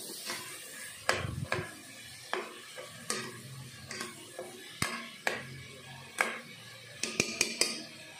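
A cooking spoon knocking and scraping against an aluminium pot while stirring chicken pieces as they are sautéed. There are about a dozen sharp, irregular clinks, each with a short ring.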